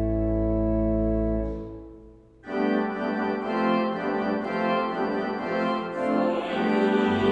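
Church organ playing: a held chord over a deep pedal note fades away about two seconds in. After a brief pause, a new, busier passage of moving chords begins.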